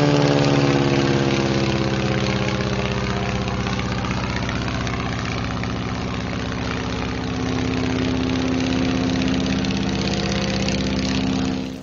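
Propeller airplane's piston engine running steadily, its pitch sagging slightly and then rising again about seven seconds in; the sound cuts off suddenly near the end.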